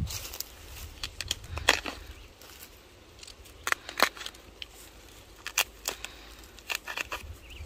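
Sweet potato vines being handled, bent and pulled over a sack of freshly dug sweet potatoes: a string of separate sharp snaps and crackles, loudest about a second and a half in and again about four seconds in.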